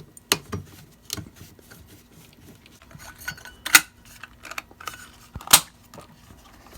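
Plastic clicks and light knocks from the wiring junction box of a recessed LED ceiling light being handled after its wires are twisted together, with two sharper snaps near the middle and later on.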